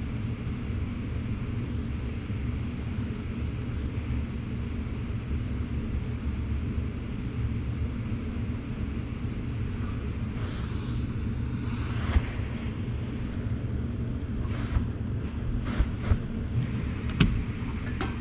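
Carpet-cleaning machine running with a steady low rumble, working through the hose on a plastic hand tool set on the carpet. A few light knocks come in the second half.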